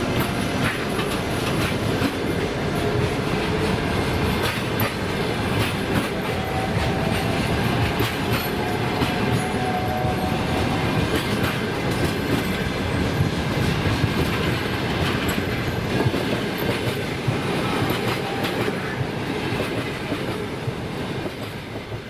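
Train pulling away from a station: a steady rolling rumble with wheels clicking over the rail joints, fading over the last couple of seconds.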